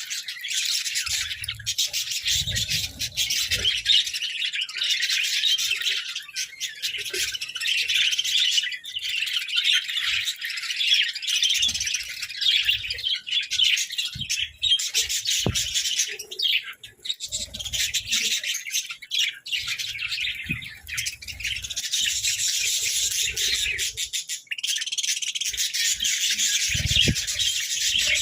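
A flock of budgerigars chattering and chirping continuously, many birds at once, with occasional low bumps and thuds.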